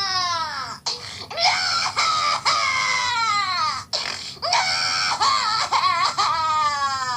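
Cartoon baby crying sound effect: a run of long wails, each sliding downward in pitch, with short breaks between them.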